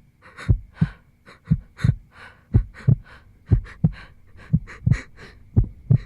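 Heartbeat sound effect: a low double thump, lub-dub, repeating about once a second, over a faint steady hum.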